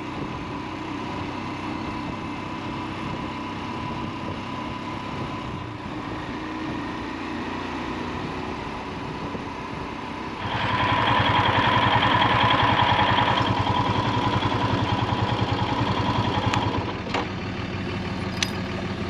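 Royal Enfield Himalayan's single-cylinder engine running under way, with tyre and wind noise on a wet road. About halfway through it grows louder, then drops back near the end as the bike slows behind traffic.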